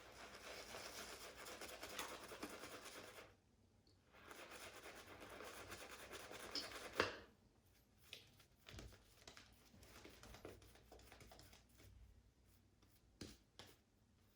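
Black Anvil Shaving 'Nadrageel' brush working a lather of soap with added water: two spells of soft, even swishing, about three seconds each with a short break between. A sharp tick ends the second spell, and then there are only faint scattered clicks.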